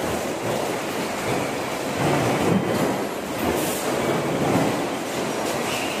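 Din of a stamping workshop: mechanical punch presses running, a continuous clattering machine noise with repeated knocks from the press strokes.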